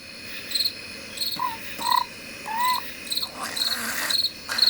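Cricket chirping: short trilled chirps repeating evenly, about two a second. A few short whistle-like tones, rising and falling, sound over it around the middle.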